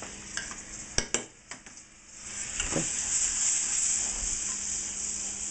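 Oyster mushrooms sizzling in butter in a stainless steel frying pan, with a few sharp metal clicks and knocks about a second in. The sizzle grows louder from about two seconds in.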